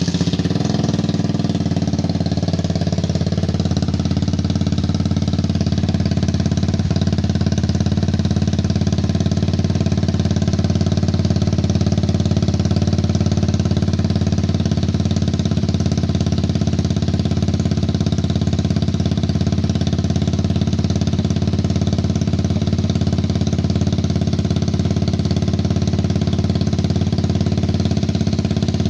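Suzuki Raider 150 single-cylinder four-stroke motorcycle engine, bored out with a 68 mm big-bore block, idling steadily through an open exhaust pipe. It has just been started.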